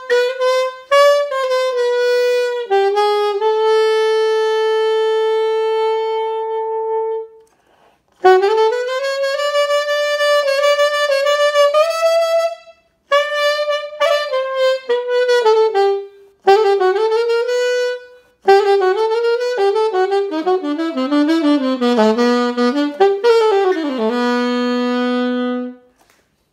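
Solo saxophone playing a corrido melody in phrases broken by short breaths, with a long held note early on. Near the end a quick falling run settles on a long low note.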